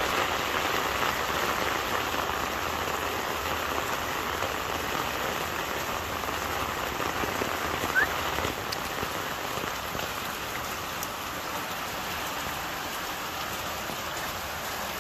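Heavy rain falling steadily on a wet street, with a brief sharp click about eight seconds in.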